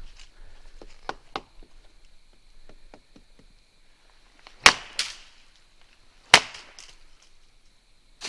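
Wood being struck sharply: a few light taps, then two loud cracks in quick succession and a third just over a second later. A faint steady high whine sits underneath.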